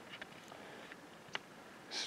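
Quiet background with one short, faint click a little past halfway.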